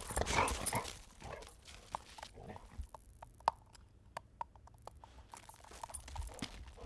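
A golden retriever's paws crunching in packed snow as she runs, loudest in the first second. Then scattered small crunches and sharp ticks, and more crunching near the end as she jumps up onto the snow wall.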